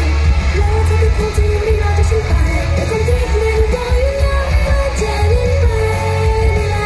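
Idol-pop song played loud through a stage sound system, with a female group singing the melody into microphones over a heavy, steady bass beat.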